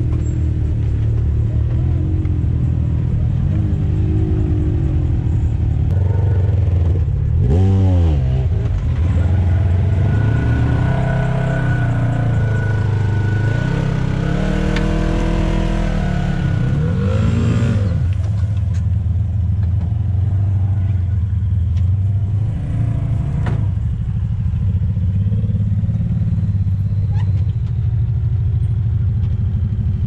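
Side-by-side UTV engines running at low revs as the rigs crawl up a steep dirt trail. The revs rise and fall sharply about eight seconds in and again a little after halfway.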